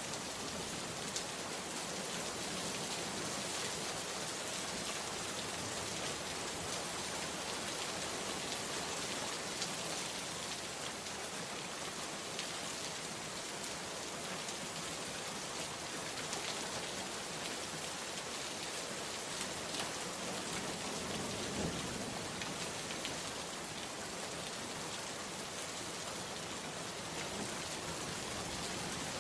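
Steady rain falling: a dense, even hiss with scattered individual drop taps.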